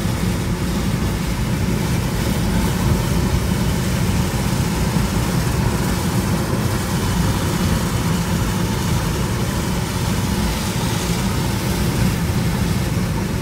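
Steady road noise from inside a car driving on a wet highway in rain: a low rumble with tyres hissing on the wet pavement.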